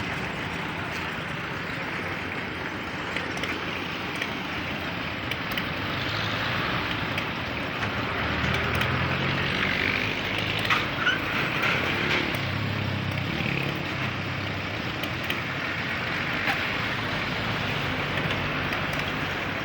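Engine of a concrete mixing machine running steadily on a building site, a little louder for a few seconds in the middle.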